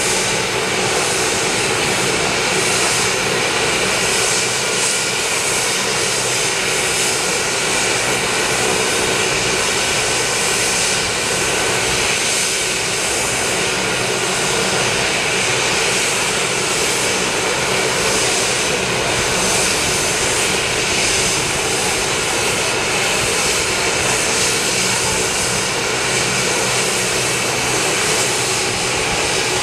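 AgustaWestland AW139 helicopter on the ground with its twin turboshaft engines and rotor running: a steady turbine whine over the rotor's noise, held at ground running for a hot load.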